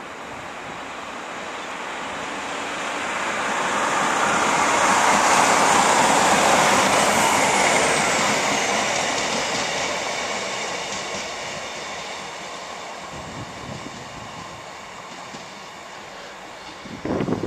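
Two-car Class 156 diesel multiple unit passing along the platform road. Its noise builds to a peak about six seconds in, with a high whine that falls in pitch as it goes by, then slowly fades as it runs away. A brief low rumble of wind on the microphone comes near the end.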